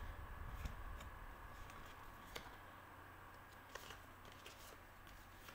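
Quiet room with a low hum and a few faint, scattered clicks of tarot cards being handled.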